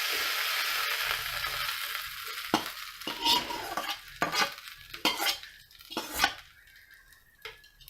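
Hot tempering oil with mustard seeds, urad dal and curry leaves sizzling as it hits the coconut chutney, loudest at first and fading over a couple of seconds. Then a spoon stirring it in, clinking against the vessel several times.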